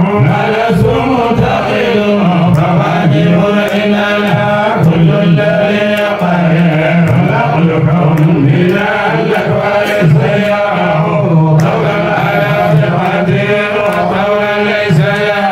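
A man's voice chanting a religious song through a microphone, in long, continuous melodic phrases.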